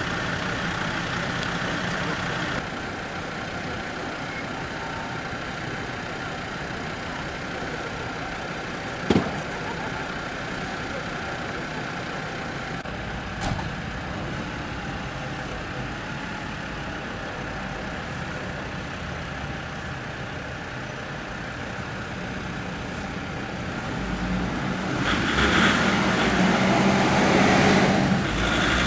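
A fire engine's engine running steadily, with two short sharp knocks about nine and thirteen seconds in. Near the end the engine gets louder as the appliance moves off.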